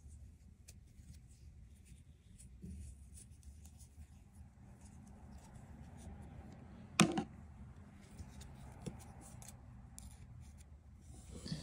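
Scissors and crochet yarn being handled: soft rustling and light clicks, with one sharp click about seven seconds in and a louder rustle near the end.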